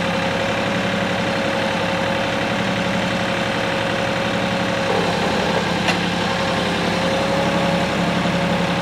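Kioti compact tractor's diesel engine running at a steady speed, with a steady whine above the engine note, while the loader picks up and raises an IBC tote full of firewood on its pallet forks.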